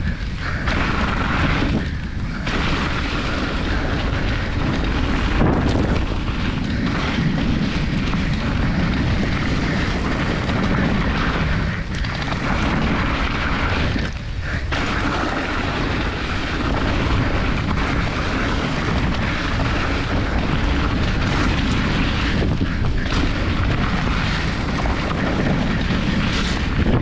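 Steady rush of wind buffeting an action camera's microphone during a fast mountain-bike descent, mixed with tyre noise on a wet dirt trail. The rush dips briefly a few times.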